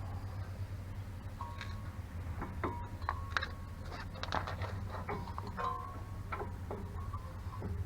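Scattered light metallic clicks and clinks, some with a brief ringing tone, as tools and brake parts are handled, over a steady low hum.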